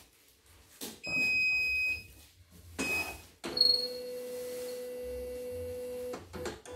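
CNY computerized embroidery machine powering up: a steady electronic beep about a second long, a short beep near the three-second mark, then its embroidery unit's motors humming steadily for nearly three seconds as the hoop arm moves to its start position. The hum stops just before the end.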